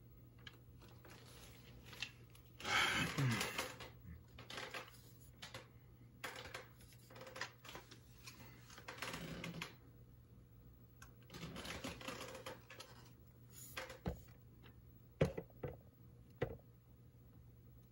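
Handling noises of an M4-style CO2 air rifle being readied: irregular rustling and clatter, then several sharp clicks near the end.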